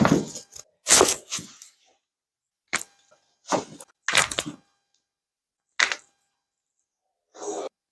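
Joints cracking under chiropractic spinal manipulation: a string of short, sharp pops, about eight in all, some in quick pairs, with brief pauses between them. The pops are gas release (cavitation) in the joints as they are thrust past their normal range.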